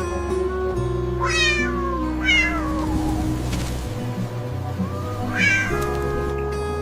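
A cat meowing three times, each meow rising then falling in pitch, over background music of steady held notes.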